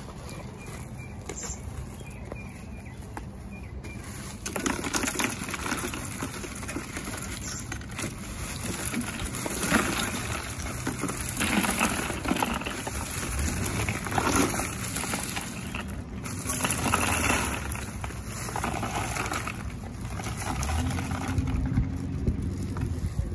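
Bags of ice poured into a plastic cooler full of bottled water and cans: ice cubes rattling down over the bottles and cans with the plastic bags crinkling, in irregular surges from about four seconds in.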